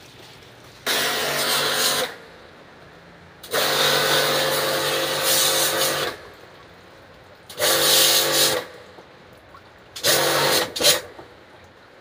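Portable pressure washer running in four bursts as the spray-gun trigger is squeezed and released, a steady motor hum under the hiss of the water jet washing the coil of a split air conditioner's indoor unit. The second burst is the longest.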